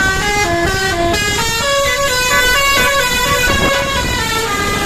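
Indonesian bus telolet horn of the basuri type playing a running melody: several notes sound together and step quickly from pitch to pitch.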